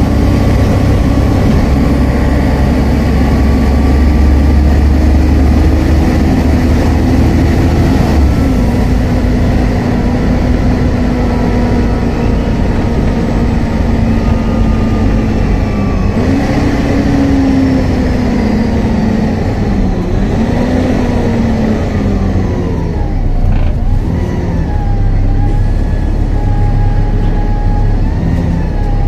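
Volvo B7TL double-decker bus heard from inside while on the move: diesel engine, gearbox whine and a loud cooling fan. The whining tones climb for several seconds and drop sharply about eight seconds in, then rise and fall again with the bus's speed.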